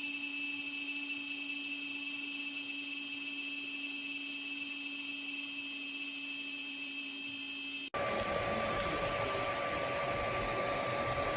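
3D printer running, its cooling fans giving a steady whirring whine with constant tones. About eight seconds in, the sound changes abruptly to a different steady hum with other tones.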